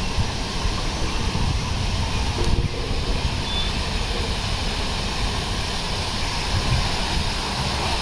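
Steady rush of an artificial waterfall spilling over rockwork, with a low rumble underneath.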